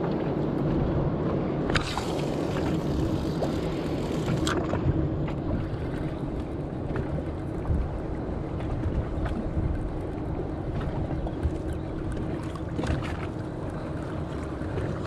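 A motor running steadily with wind noise on the microphone, and a few faint clicks.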